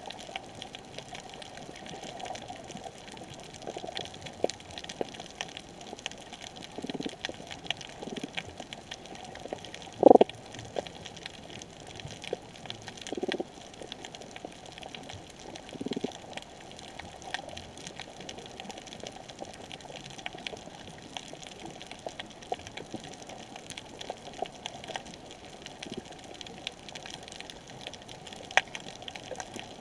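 Underwater coral-reef ambience: a steady hiss with constant fine crackling clicks, broken by a handful of short, low thumps, the loudest about ten seconds in.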